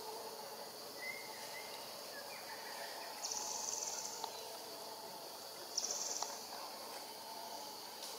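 Steady forest insect chorus, with two short, high buzzing trills from a nearby insect, about three and six seconds in.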